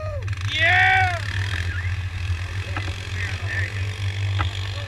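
Vehicle engines idling with a steady low drone, while someone lets out drawn-out shouts: one trailing off right at the start and a louder rising-and-falling one about a second in. A few light clicks follow.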